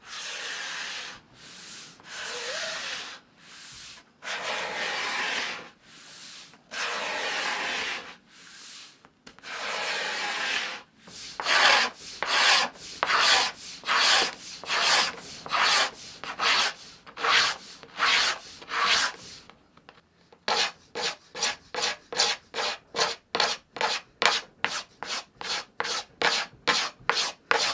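Hand card scraper being pushed over a thin wooden guitar top board to flatten it. The strokes start long and slow, about a second each, then quicken to about two a second, pause briefly, and finish at about three short strokes a second.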